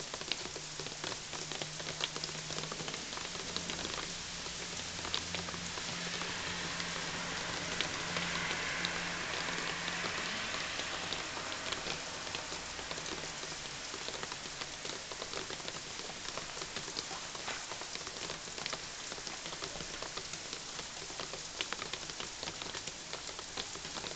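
Steady rain falling on trees and surfaces, with many sharp drops ticking close by. The rain's hiss swells around the middle, and a low hum sounds under it through roughly the first half.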